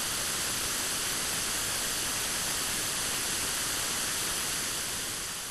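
Steady white-noise hiss like a television showing static, starting to fade out near the end.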